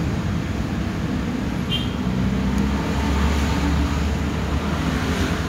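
Steady low rumble of road traffic, with a brief faint high chirp a little under two seconds in.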